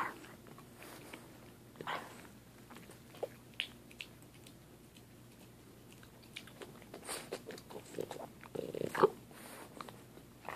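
A Boston terrier chewing and gnawing a pig ear: irregular crunches and wet chewing clicks, with a quick flurry of bites and the loudest crunch about nine seconds in.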